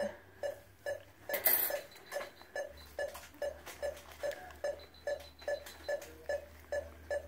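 Anaesthesia patient monitor beeping with the anaesthetised dog's pulse, short even beeps of one pitch at about two a second, a steady surgical heart rate. A brief rustle of handling noise about a second and a half in.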